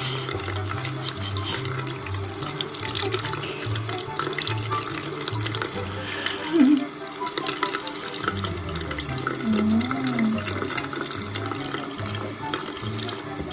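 Steady running water, like a tap running, over background music with a repeating bass line.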